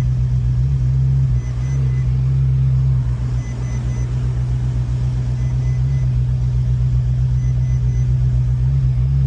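Ferrari 458 Italia's 4.5-litre V8 idling with a steady, slightly uneven pulse, misfiring from a cylinder the shop traces to a burnt ignition coil. A faint triple electronic beep repeats about every two seconds.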